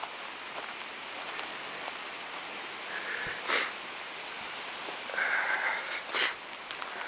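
Footsteps and trekking-pole taps on a wet, snowy trail, with the hiker sniffing sharply twice, about halfway and near the end.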